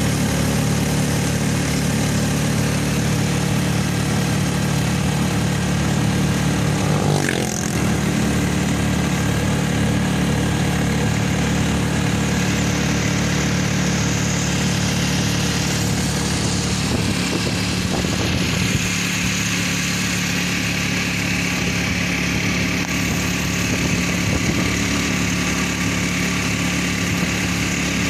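Motorcycle engine of a Philippine tricycle (motorcycle with sidecar) running steadily under way on the road, with a brief change in its note about seven seconds in.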